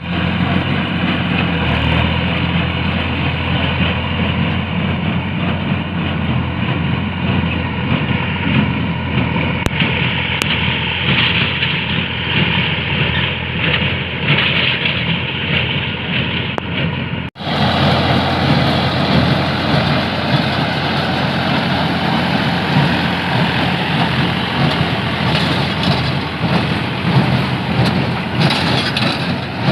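Massey Ferguson 9500 4x4 tractor's diesel engine running steadily while working with a baler. The sound cuts out abruptly about 17 seconds in and resumes straight away, a little noisier.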